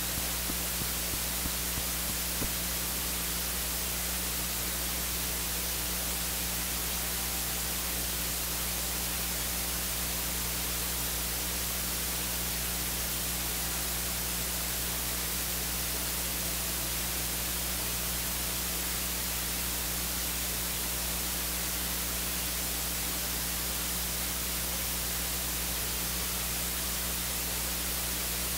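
Steady electronic hiss with a low electrical hum, the noise floor of the church's recording feed, with a few faint ticks in the first couple of seconds.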